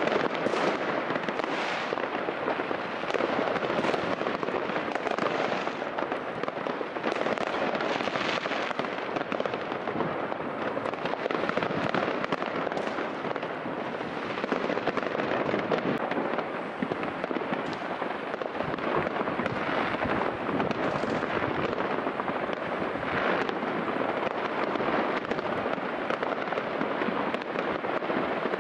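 Many fireworks and firecrackers going off at once, a dense crackle of overlapping bangs with no pause.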